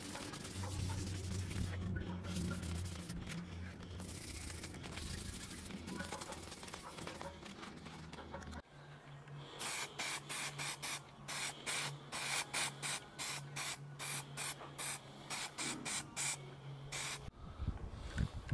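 Aerosol spray-paint can sprayed in many short hissing bursts, about two to three a second, from about eight and a half seconds in, putting black paint on exhaust flanges. Before that, a steady hiss over a low hum.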